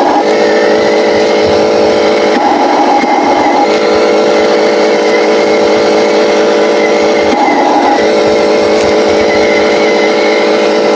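RC Scania 770S truck's engine sound running steadily, a low even drone that turns rougher and higher for about a second, twice, with a faint high whine over it.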